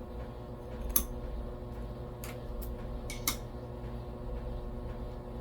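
A handful of light, sharp clicks of coins being handled, the loudest about a second in and just past three seconds, over a steady low electrical hum.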